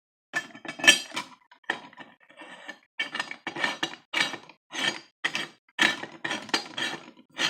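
Metal parts of a LEM No. 8 meat grinder clinking and knocking together as they are fitted and aligned on the grinder head: repeated sharp clinks, about two a second, each with a short metallic ring.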